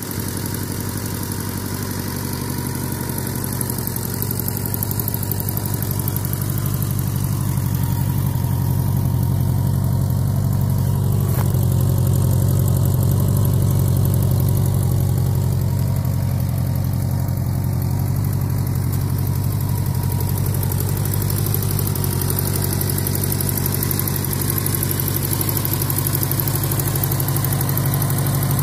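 1984 Honda Gold Wing GL1200's liquid-cooled flat-four engine idling steadily through its twin mufflers. It is a smooth, even low rumble that grows a little louder midway, then eases back.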